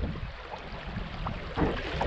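Creek water rushing and splashing against a kayak floating down fast-moving current, with low wind rumble on the microphone. A louder splash comes about one and a half seconds in.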